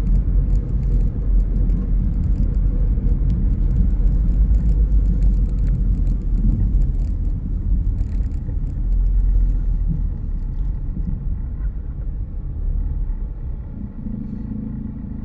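Car driving: a steady low rumble of road and engine noise, growing quieter over the last few seconds.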